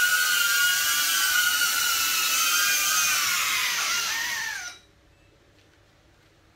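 DJI Avata FPV drone's ducted propellers whining at a high pitch with several tones at once. The pitch sags slightly, then glides down as the motors spin down and stop about four and a half seconds in.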